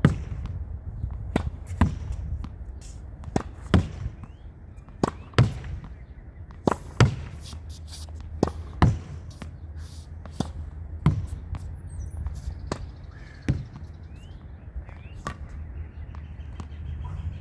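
Tennis ball hit with a racket against a practice wall: sharp pops of racket on ball and ball on the wall, often in close pairs, every second or two. A steady low rumble runs underneath.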